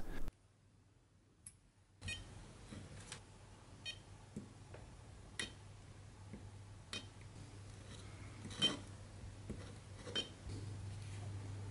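Battery spot welder firing its probes through a nickel strip onto 18650 cell terminals: faint sharp clicks at irregular intervals, a few carrying a short beep, over a low steady electrical hum that grows a little louder near the end.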